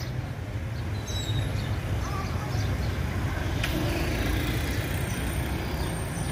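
Street background noise: a steady low rumble, with a single sharp click about three and a half seconds in and a few faint high chirps.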